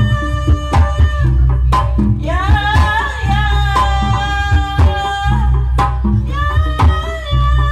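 Sundanese folk-trance accompaniment music, loud: hand drums beating with a heavy low beat under a wavering, held melodic line, which breaks off briefly about two seconds in and then picks up again.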